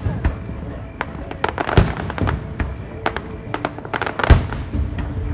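Aerial fireworks shells bursting: two loud booms about two and a half seconds apart, with quick crackling pops clustered around them.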